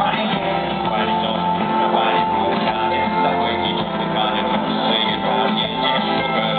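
Taiwanese rock band playing live, with strummed guitars in a dense, steady mix.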